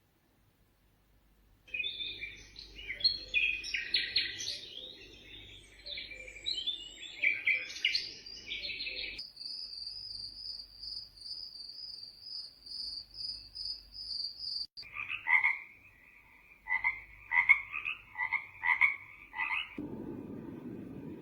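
Momcozy sunrise alarm clock's sound machine playing its recorded nature sounds one after another. A chorus of croaking frogs starts about two seconds in and switches abruptly to a steady pulsing high trill, then to a run of short chirping calls. Near the end it cuts to a low steady noise.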